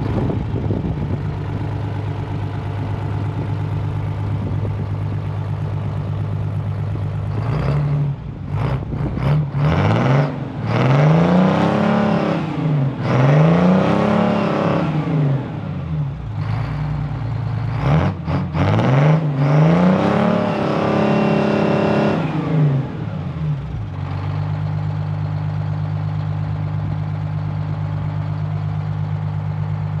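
Detroit Diesel 6V-71 two-stroke V6 diesel of a Trojan 3000B wheel loader, heard through new stainless exhaust pipes. It idles steadily, is revved up and let back down several times, then settles back to idle.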